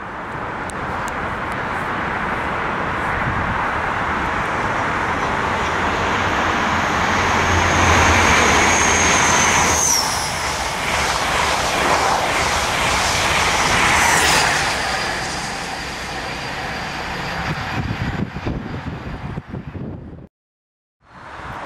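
InterCity 125 High Speed Train, with a Class 43 diesel power car at each end, passing at speed. The sound builds, and a high whine drops in pitch as the leading power car goes by about ten seconds in. The rear power car passes with wheel clatter about four seconds later, then the sound fades and cuts off near the end.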